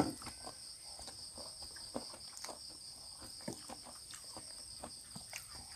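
Crickets and other night insects trilling steadily in two high-pitched bands, with soft scattered clicks from someone eating close by.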